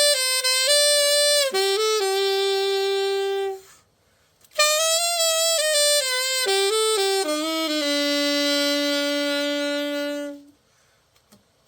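SML Strasser Marigaux silver alto saxophone played solo in two short melodic phrases with a brief pause between them. The second phrase ends on a long held lower note.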